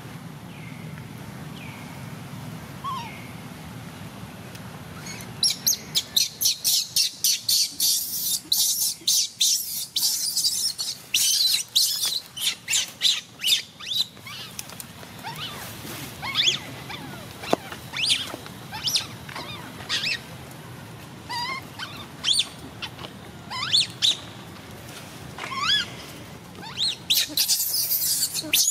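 Baby macaque screaming and squealing in distress, as it is kept from nursing. After a few quiet seconds come rapid, loud, high-pitched shrieks. These thin out to separate squeaks partway through, then come thick and fast again near the end.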